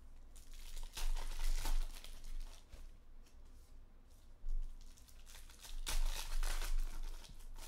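Trading-card pack wrappers being torn open and crinkled by hand, in a burst about a second in, a short one midway and another around six seconds in.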